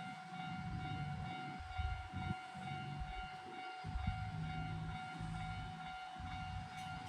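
Japanese level-crossing alarm ringing on a steady high tone while a Hiroden 3900-series tram rolls past, its wheels rumbling low with a few clunks over the rail joints, the sharpest about two and four seconds in.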